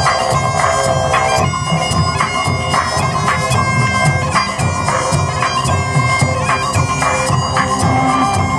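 Live band music: bagpipes play a melody over their drone, with a pulsing low didgeridoo and a steady drumbeat.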